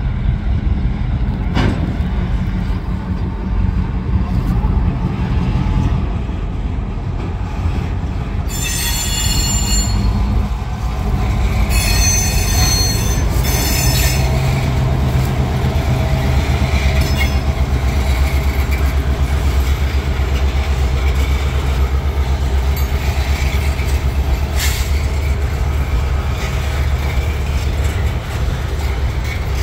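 Diesel freight locomotive rolling slowly past with its engine running, the low drone growing stronger as the locomotive comes alongside, followed by the wheels of flatcars rolling by. Two brief high-pitched squeals come about nine and twelve seconds in.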